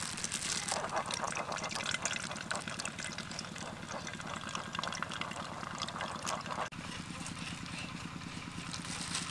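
Blended grape juice trickling and dripping through a cloth and plastic sieve into a stainless steel bowl as the wet pulp is squeezed by hand, over a steady low hum.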